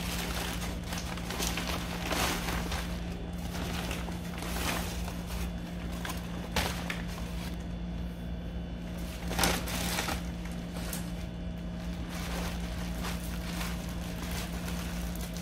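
Paper and plastic bags and bubble wrap rustling and crinkling as they are handled and pulled apart, with a few sharper, louder crinkles; a steady low hum underneath.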